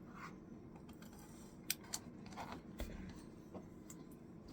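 Faint, scattered clicks and scratches of fingernails picking at a torn sticker on a computer case.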